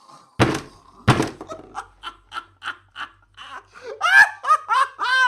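Two heavy thuds less than a second apart, followed by laughter: short, rhythmic bursts that build into loud, high-pitched laughing near the end.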